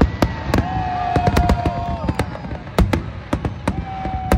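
Aerial fireworks shells bursting in rapid, irregular succession, about three bangs a second. A steady high tone is held twice through the bangs, each time for about a second and a half.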